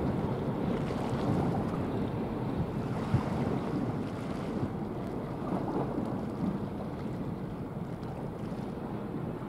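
Wind rumbling on the microphone over the wash of water and low rumble of a passing bulk carrier, with one brief knock about three seconds in.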